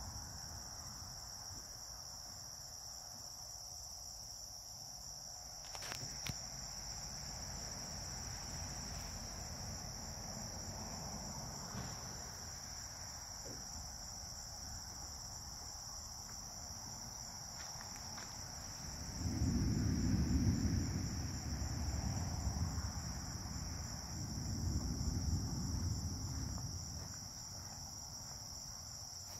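A steady chorus of night insects chirping. About two-thirds of the way through, thunder rolls in twice as a low rumble, the first swell louder than the second.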